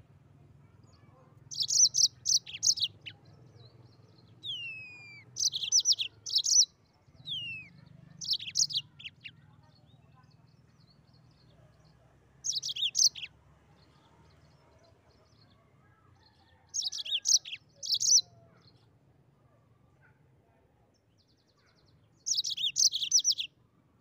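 Yellow-fronted canary (Mozambique canary) singing: short bursts of rapid, high trilled notes, each about a second long, repeated every few seconds. Two falling whistled notes come between the early bursts.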